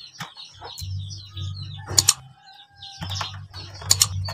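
Small birds chirping and tweeting, with two sharp clicks about two seconds apart and a low hum that comes and goes underneath.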